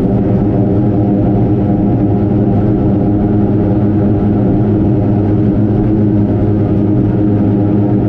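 Offshore race boat's engines heard from inside the enclosed cockpit, running steadily at racing speed with a constant pitch.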